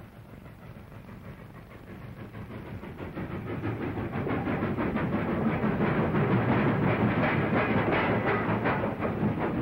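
Steam train approaching, swelling from faint to loud over about five seconds, then running loud and steady with a fast rhythmic clatter and hiss.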